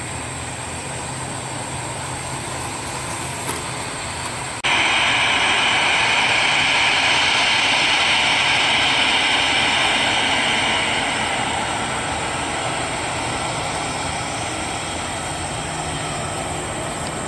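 Airliner jet engines at taxi power, a steady rush with a low hum. About four and a half seconds in the sound jumps to a louder, higher whine of a taxiing Airbus A320's engines, which eases off gradually over the following seconds.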